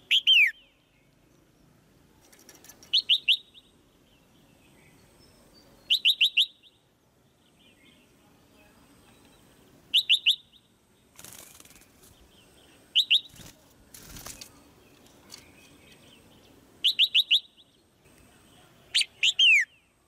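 Red-whiskered bulbul calling in a cage: short bursts of three or four quick, sharp chirps, repeated about every three seconds, the female's chattering call used to spur a male to sing. A brief rustle comes twice near the middle.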